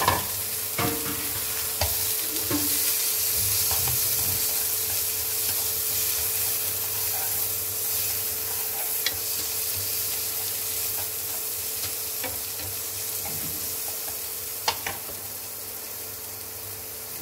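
Shredded salted radish (cải xá bấu) sizzling as it fries in oil in a nonstick pan, with a steady hiss. It is stirred with a utensil that clicks against the pan now and then. The sizzle eases a little toward the end.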